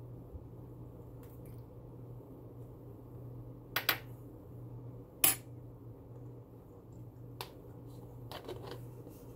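A spoon clicking and scraping against a plastic food tub during eating: a quick pair of clicks near four seconds in, a sharper one about a second later, and a few fainter ones near the end, over a steady low hum.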